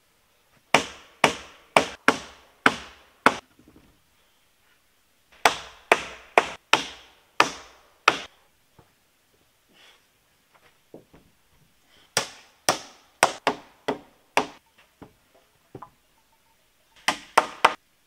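Hammer blows on a wooden crossbeam of a timber A-frame: four runs of sharp strikes, about two a second, with pauses between; the last run is quicker.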